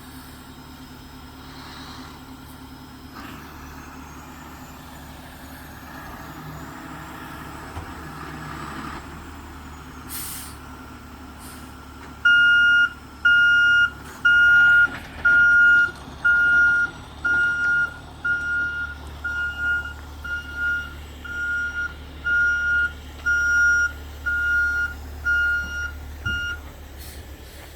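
Tow truck backing up: its diesel engine runs low and steady, a brief hiss comes about ten seconds in, and then its reverse alarm beeps about sixteen times at a steady pace of a little under one beep a second before stopping near the end.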